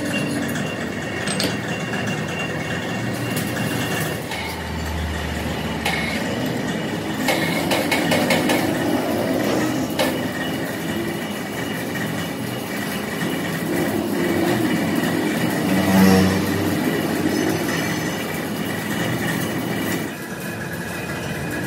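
Machine-shop noise: a steady mechanical running and rattling with scattered clicks and knocks, and a low thump about 5 seconds in and again near 16 seconds.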